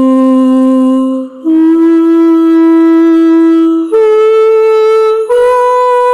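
Sampled instrument patch from the Ethera Gold Atlantis Kontakt library, playing single long held notes one after another. Each note steps higher than the last, about four notes in all, with a brief dip between the first and second.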